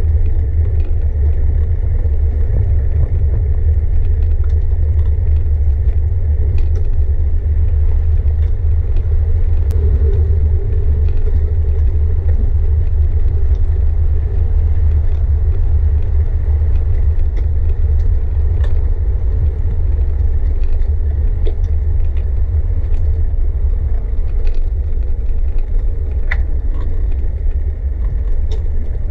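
Steady low rumble of a moving bicycle: wind on the microphone and road vibration, with a few light clicks and rattles scattered through it.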